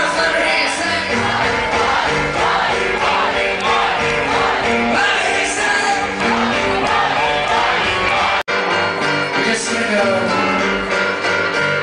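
A rock band playing live, with a man singing lead over guitars and drums. The sound drops out for an instant about eight and a half seconds in.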